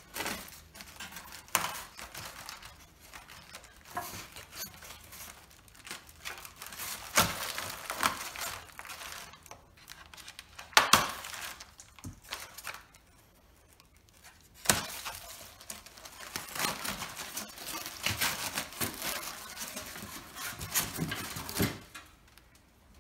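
Brown packing tape being torn and peeled off white foam packing slabs, which are then pulled apart in a cardboard box. Uneven runs of tearing, crinkling and rustling, broken by a few sharp cracks.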